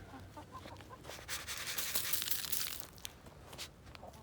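Chickens scratching and pecking at scratch grain in dry litter: a dense, uneven rustling and crunching, heaviest in the middle.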